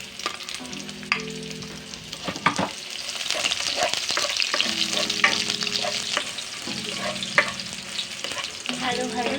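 Chopped garlic and onion sizzling in hot, smoking oil as they are sautéed and stirred, with the spatula scraping and clinking against the pan.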